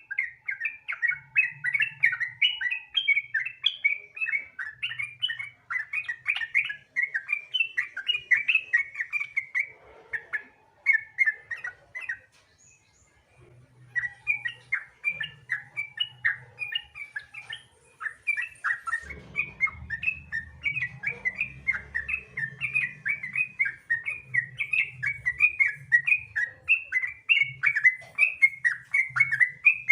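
Yellow-vented bulbul (trucukan) singing in rapid, continuous rolling chatter ('gacor ropel'), fast repeated notes that break off briefly near the middle and then resume.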